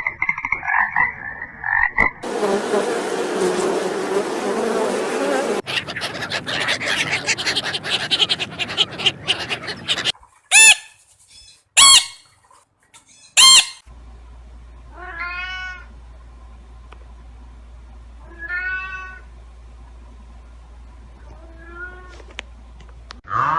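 A string of different animal calls. It opens with about two seconds of rhythmic frog croaking, followed by several seconds of noisy rustling and crackling. After that come three short, loud calls and then a few spaced calls that rise and fall in pitch.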